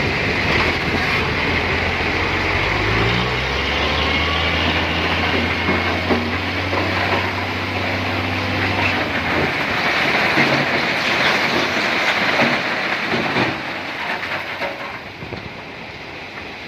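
Heavy diesel machinery running at a rock-crushing site. A low engine hum rises in pitch briefly about three seconds in and drops away about nine seconds in, over a continuous clattering rattle of stone and machinery with scattered knocks. The rattle grows quieter near the end.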